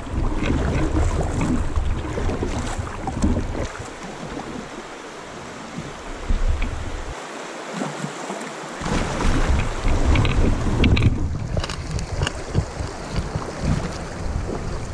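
Kayak being paddled down a flowing river: water sloshing and splashing under the hull and paddle, with wind rumbling on the microphone that drops away twice in the middle, and a few light clicks of the paddle.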